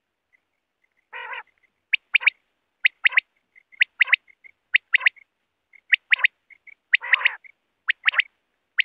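Common quail (bater) calling: a single rougher, lower note about a second in, then its clipped song phrase of two or three short high-pitched notes, repeated about once a second.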